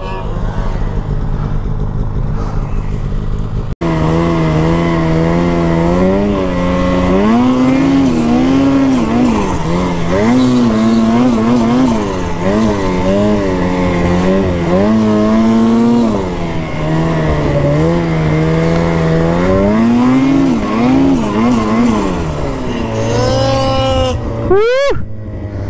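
Snowmobile's two-stroke engine under throttle, its pitch rising and falling again and again as the rider works the throttle through the snow. Near the end there is a quick rising whine.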